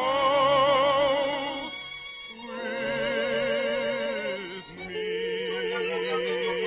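Operatic singing with wide vibrato over orchestral accompaniment, in long held notes. Loudness dips about two seconds in, and again just before five seconds in, before new held notes begin.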